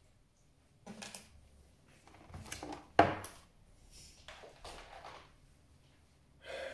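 Hands handling a desktop PC case and its parts: a run of clicks, knocks and scraping rustles, with one sharp knock about three seconds in.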